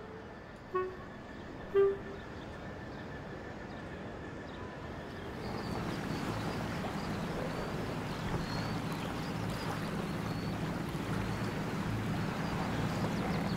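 Two last faint notes of music, then from about five seconds in the steady low drone of a loaded inland cargo barge's engine with a wash of water noise.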